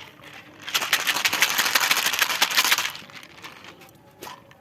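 A dense run of rapid crackling clicks lasting about two seconds, followed by a single sharp click near the end.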